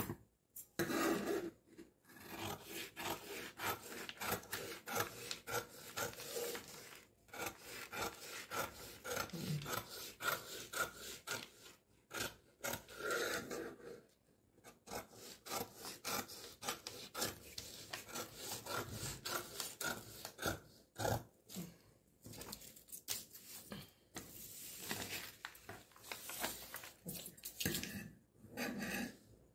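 Scissors cutting through stiff brown kraft pattern paper: a long run of quick snips and crisp paper rustle, pausing briefly several times as the blades are repositioned along the line.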